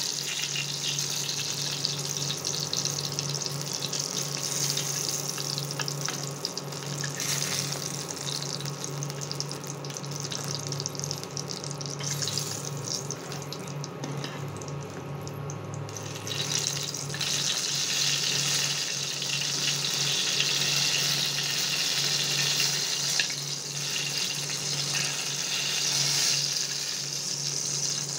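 Eggplant pieces sizzling in hot oil in a kadai as they finish frying and are lifted out with a spatula, over a steady low hum. The sizzle thins for a few seconds around the middle, then comes back strongly.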